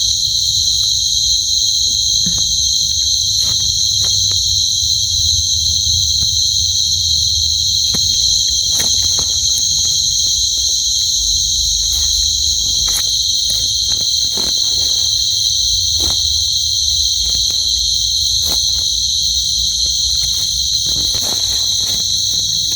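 Steady, unbroken high-pitched chorus of night insects such as crickets, with scattered short clicks and rustles beneath it.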